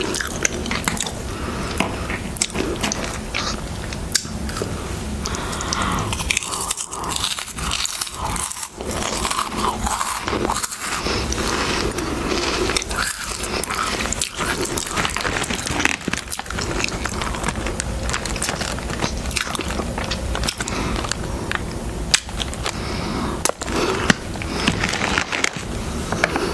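Crunchy Harvest Snaps baked snack crisps being chewed close to a microphone, with a steady run of irregular crunches and crackles.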